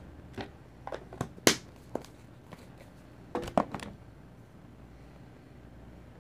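A spoon and small containers knocking and clicking while seasoning is added to a frying pan: about eight sharp knocks over the first four seconds, the loudest about a second and a half in.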